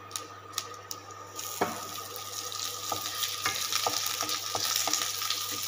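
Curry leaves sizzling in hot oil with mustard seeds in a kadai, stirred with a wooden spatula. The sizzle sets in about a second and a half in and grows louder, with scattered light ticks and taps.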